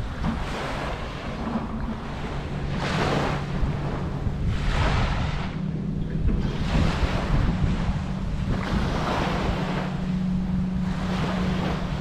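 Wind buffeting the microphone and rushing water, swelling and easing every second or two, over a steady low engine hum.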